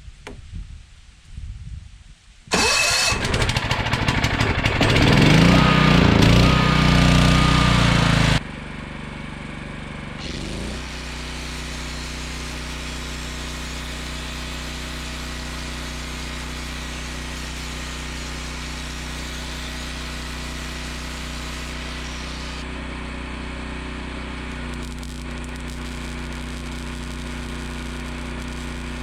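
Generac 7000EXL portable generator's engine starting up about two and a half seconds in, running loud and rough for about six seconds, then settling into a steady, lower even drone.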